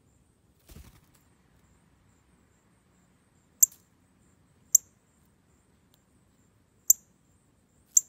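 Northern cardinal giving sharp, high chip calls, four single notes spaced one to two seconds apart.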